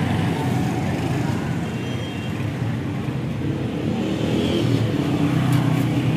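A steady low engine hum over general street noise, with a few faint clicks near the end.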